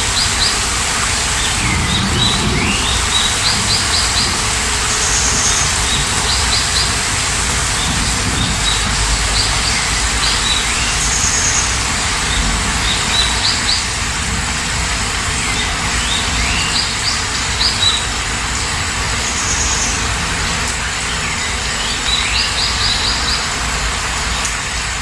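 Steady rain hiss, with a songbird repeating a short phrase of quick chirps and falling whistles every few seconds.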